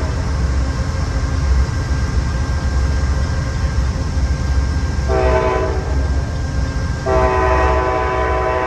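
An approaching train's horn gives a short blast about five seconds in, then a long blast from about seven seconds in, several notes sounding together, over a steady low rumble.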